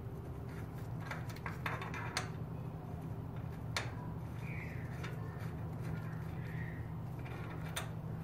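Light metal clicks and taps as a crank puller is threaded by hand into a bicycle's square-taper crank arm: a quick run of clicks in the first couple of seconds, then two single clicks spaced well apart, over a steady low hum.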